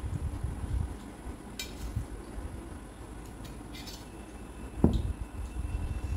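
Eating sounds from a meal taken by hand off stainless steel plates: fingers mixing rice and curry against the steel, with a few light clinks and one sharper knock about five seconds in.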